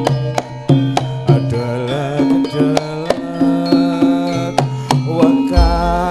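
Javanese gamelan ensemble playing in Sragenan style: hand-drum strokes over the ringing, sustained notes of bronze metallophones and gongs, with a deep low boom coming in near the end.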